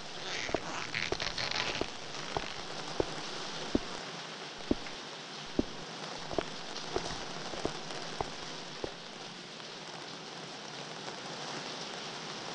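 Water dripping into standing water, a drop about every second, over a steady rain-like hiss of water. There is a brief brighter fizz of splashing in the first two seconds, and the drips stop about three-quarters of the way through.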